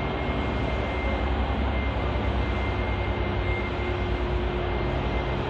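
Steady rushing background noise at an even level, with a faint high tone held through it.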